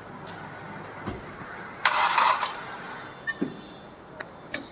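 Hyundai i20 engine cranked on the starter: one short, loud burst about two seconds in, then a few light clicks.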